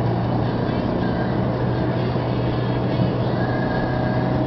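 Steady cabin noise of a car cruising on a highway: a constant low engine drone under road and tyre noise.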